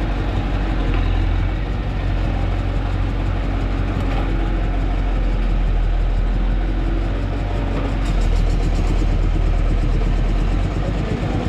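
Diesel engine of a Volvo wheeled excavator running steadily, a loud, deep, even hum.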